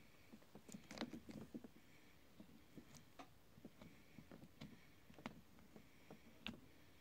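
Faint, irregular ticks and crackles of an uncapping tool scraping the wax cappings off a frame of capped honeycomb.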